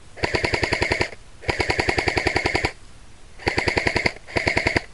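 Airsoft M4-style rifle firing on full auto in four short bursts of rapid, evenly spaced shots, about fifteen a second, the longest a little over a second.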